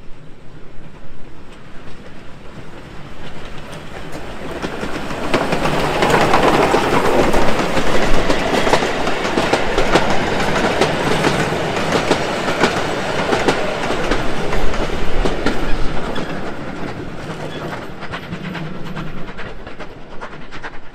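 Steam-hauled narrow-gauge passenger train on the move, its wheels clicking over the rail joints. It grows louder about five seconds in and fades again near the end.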